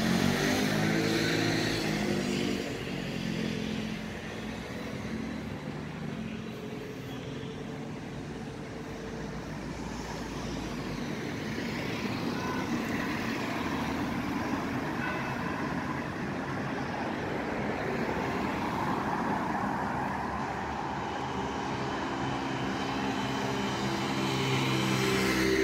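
City road traffic: motor vehicles driving past on the street, one engine's pitch sliding down as it passes in the first couple of seconds, then a steady traffic hum, with another engine growing louder near the end.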